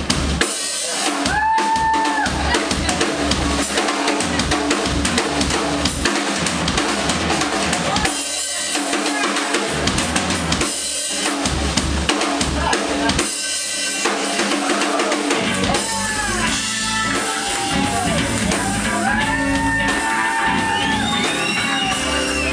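Drum kit played in a busy rock-style groove, with kick drum, snare and rim hits, inside full band music. Held, bending pitched notes come in over the drums a couple of seconds in and again near the end.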